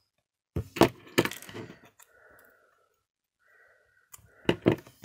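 Small pliers squeezing and bending a folded piece of aluminium coffee capsule flat: sharp clicks and crackles of the metal near the start and again twice about four and a half seconds in, with faint crinkling between.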